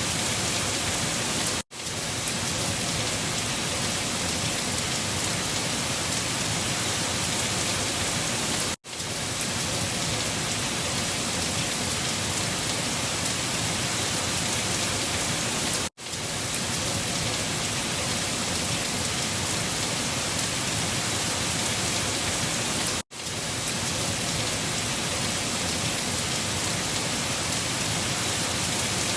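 Steady rain, an even hiss of falling rain. The sound drops out for a split second about every seven seconds, four times, and comes straight back.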